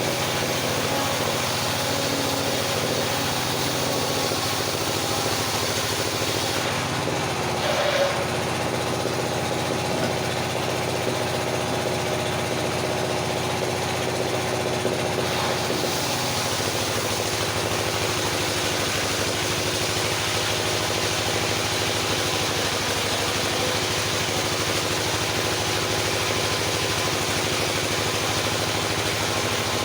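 Engine-driven circular sawmill running steadily, with a brief louder sound about eight seconds in.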